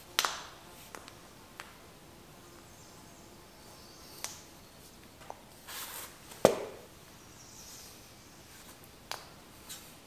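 Scattered light taps, knocks and brief scrapes of a rubber garage door threshold strip being handled and pressed into place on a concrete floor. Two sharper knocks stand out, one just after the start and a louder one past the middle.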